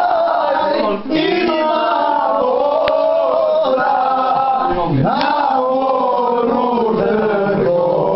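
A group of people singing loudly together, mostly men's voices, with a brief break about a second in.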